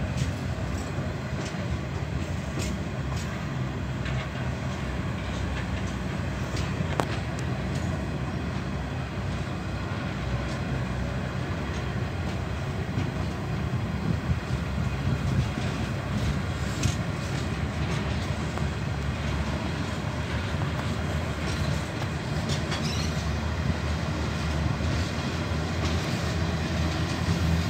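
Coal hopper wagons of a long freight train rolling past close by: a steady rumble of steel wheels on rail, with scattered sharp clicks of wheels over rail joints.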